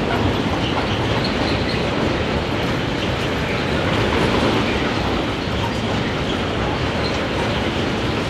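Freight train of tank wagons rolling past close by: a steady, loud rumble and clatter of steel wheels on the rails.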